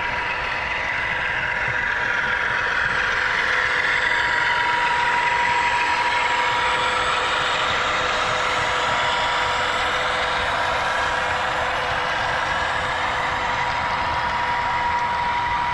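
HO scale model locomotive running on the layout, its DCC sound decoder playing a diesel engine sound through a small speaker, with a steady high hum; it grows a little louder a couple of seconds in.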